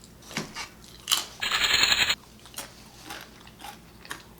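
Close-up eating sounds: small wet mouth clicks, then a loud crunchy bite about a second and a half in that lasts under a second, followed by quieter chewing clicks.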